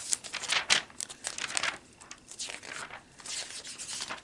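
Magazine pages being turned and handled, a series of papery rustles and swishes.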